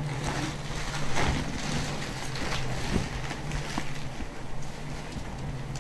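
Rustling swishes of a heavy embroidered saree being unfolded and spread out by hand, several swishes in the first half, over a steady low hum.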